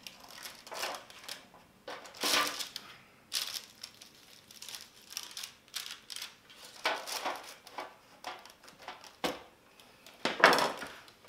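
Metal baking trays being handled: scraping and knocking of a sheet pan against an enamelled oven tray, with parchment paper crinkling, in a string of irregular bursts. The loudest knock comes near the end as the stacked trays are turned over and set down on a wooden board.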